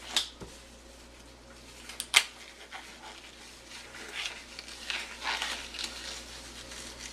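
Light handling noises: rustling and soft taps, with one sharp click about two seconds in and denser rustling later on.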